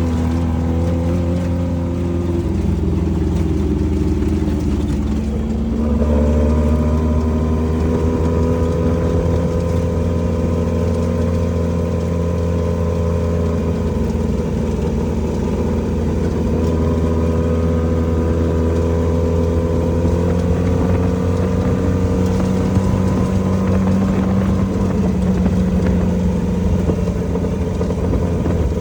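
Off-road race vehicle's engine running hard and continuously, its pitch rising and falling with the throttle, with a drop about two seconds in and a jump up about six seconds in.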